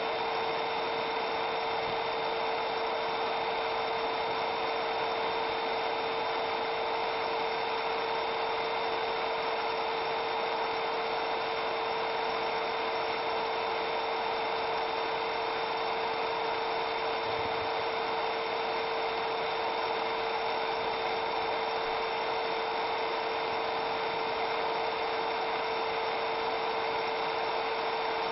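100-watt CO2 laser engraver running as it marks a Cermark-coated brass plate: a steady mechanical hum with a constant mid-pitched tone that does not change.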